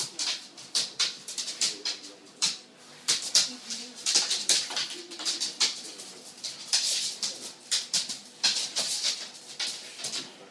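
Pit bull puppy and larger dogs playing rough on a hardwood floor: quick, irregular clicks and scrapes of claws skittering and scrabbling on the boards, with a few faint puppy whines.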